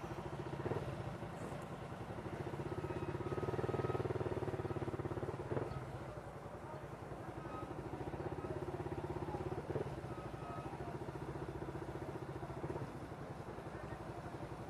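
Motorcycle engine running at low speed, a steady rumble that swells slightly about three to four seconds in, with a few faint, brief high squeaks over it.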